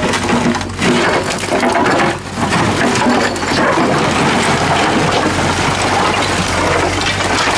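Steel bucket of a Doosan DX55W mini excavator scraping over brick paving and digging into broken bricks and concrete rubble: continuous grinding and clattering with many sharp knocks and cracks as the debris shifts. A steady low engine hum runs underneath.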